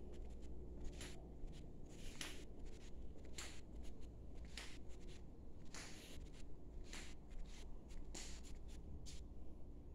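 Soft footsteps scuffing on a tiled floor, an irregular series of short, faint scratchy steps about one every half-second to second.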